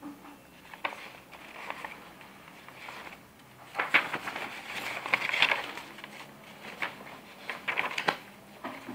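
Handling noise: rustling with irregular small clicks, thickest about four to five and a half seconds in and again near the end.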